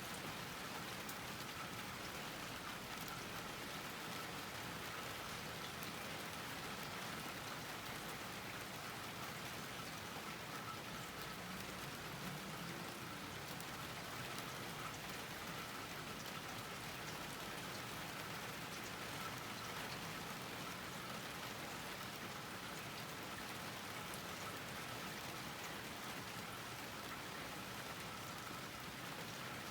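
Steady rain falling on a garden, an even patter that does not let up.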